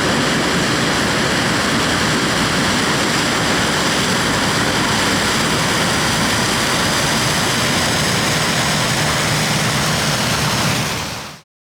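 Heavy harvesting machinery running steadily under load during maize harvest, a loud even engine and mechanical noise that fades out quickly near the end.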